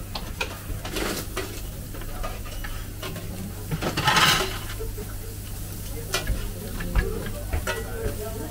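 Skewers of meat and vegetables sizzling over a charcoal grill, with metal skewers clicking and knocking as they are turned and set down. A louder hiss of about half a second rises a little before the middle, over a steady low hum.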